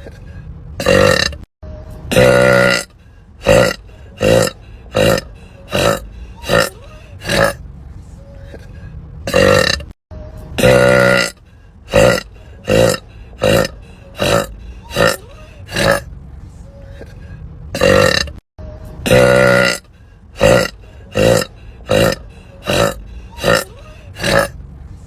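A rapid string of women's burps, about one a second. Most are short, with a few longer drawn-out ones, and the run is broken by a couple of abrupt cuts between clips.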